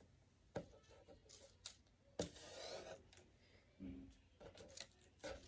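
Near silence with a few faint, scattered clicks and taps from a plastic squeeze bottle of white glue and paper strips being handled.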